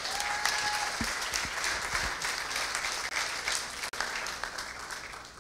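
Church congregation applauding, with a short call from one voice in the first second; the clapping dies down near the end.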